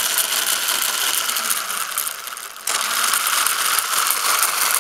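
24-volt electric lawn mower motor on a moped converted from gas, running flat out on its on/off relay switch and spinning the V-belt drive and rear pulley: a dense, fast clatter of ticks over a hiss, a little louder just past halfway.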